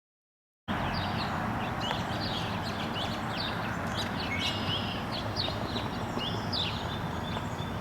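Small birds chirping and calling over a steady outdoor background hiss, cutting in abruptly from silence a moment in.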